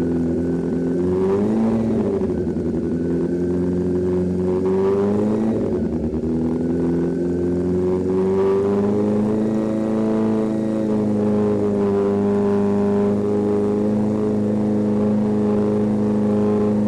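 Honda CB400 with a full aftermarket exhaust system, its engine held at about 3,000 rpm for a sound-level test. The revs waver up and down for the first several seconds, then settle and hold steady.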